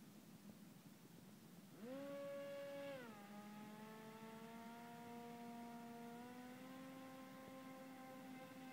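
Faint whine of an RC swamp buggy's rear-facing propeller motor. It starts about two seconds in, drops in pitch a second later, then runs on steadily, slowly climbing in pitch.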